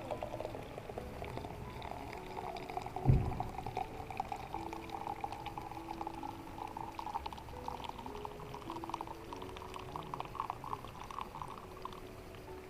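Liquid being poured into a container, a dense gurgling crackle whose pitch edges slowly upward as it fills, with a single thump about three seconds in.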